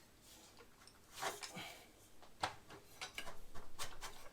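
Clicks and light knocks of mitre saw stand parts being handled during assembly: a brief scrape about a second in, one sharp click about halfway, then a quick run of small ticks near the end.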